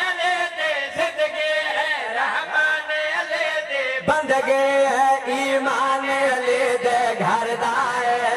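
A man chanting devotional verse into a microphone, in long, drawn-out, wavering notes with short breaks for breath.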